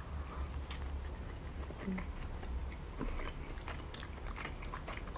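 Close-miked chewing of raw sushi: a run of small wet mouth clicks and smacks at an uneven pace.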